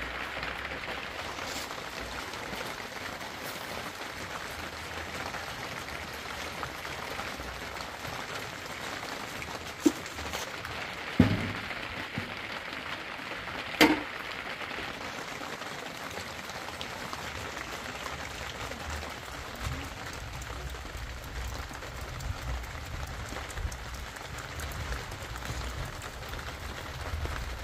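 Steady rain pattering, with three sharp knocks of objects being handled about ten, eleven and fourteen seconds in. Wind buffets the microphone with a low rumble in the last few seconds.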